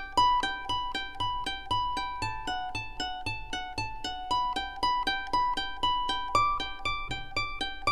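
Background music: a quick, repeating melody of plucked string notes.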